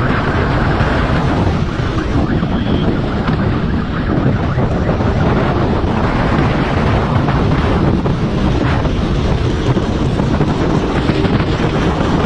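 Heavy wind buffeting the microphone of a motorcycle riding at speed, with the motorcycle's engine running underneath.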